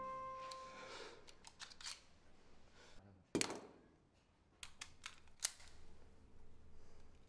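A pistol magazine knocks down onto a wooden table about three and a half seconds in, followed by several small metallic clicks of the pistol being handled, the sharpest near the end.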